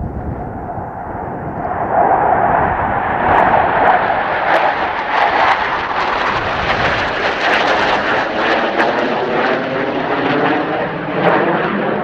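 Formation of F/A-18C Hornet fighter jets passing overhead, their twin turbofan engines building up over the first two seconds, staying loud through the middle, and easing off near the end as they move away.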